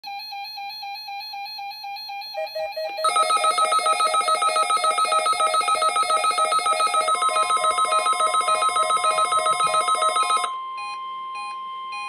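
Several NOAA weather radio receivers sounding their alert beeps at once on a Required Weekly Test. One receiver's rapid beeping starts it and a second joins about two seconds in. From three seconds a loud chorus of pulsing electronic alarms runs until about ten and a half seconds, then drops back to a steady tone with softer beeps.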